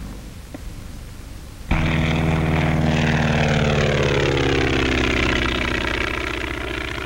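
Biplane radial engine droning: faint at first, then suddenly loud about two seconds in, its pitch falling steadily as the plane passes close by.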